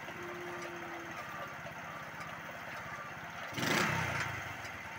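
Unique motorcycle's 70cc single-cylinder four-stroke engine running at an even beat, with a louder burst of noise lasting under a second a little past halfway.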